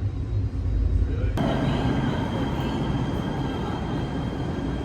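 LA Metro light rail train running, a steady low rumble that changes abruptly about a second and a half in to a fuller rumbling noise with a faint steady high whine.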